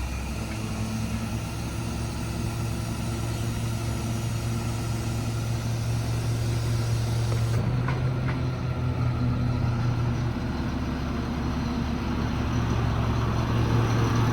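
Caterpillar C7 diesel engine of a Ford F-750 service truck running at a steady speed while the truck's hydraulic crane is operated, giving an even hum. The tone shifts slightly about halfway through, with a couple of faint clicks, and the sound grows a little louder toward the end.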